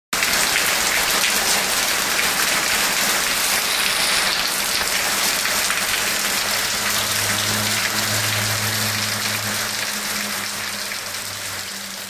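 A steady rushing hiss like heavy rain or blowing air, with a low hum joining about seven seconds in.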